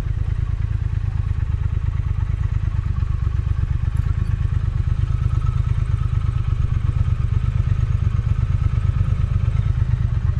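Triumph Thruxton's 1200 cc parallel-twin engine, breathing through a Motone X-pipe, running steadily at an even low speed with a deep, fast pulsing exhaust note and no revving.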